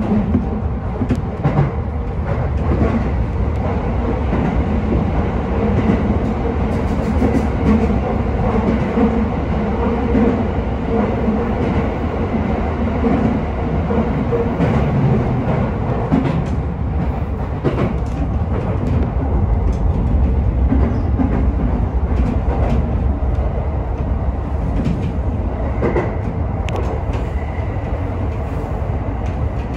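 Sotetsu Izumino Line electric commuter train running along the line: a steady rumble of wheels on rail with a motor hum, and scattered clicks from the track.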